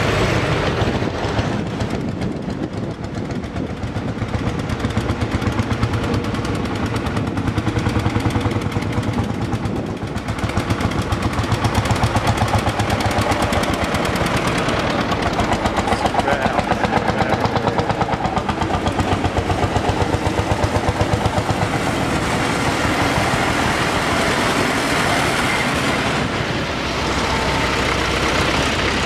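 Vintage farm tractor engines driving past one after another while climbing a slope, each running with a fast, even exhaust beat that swells as a tractor passes close.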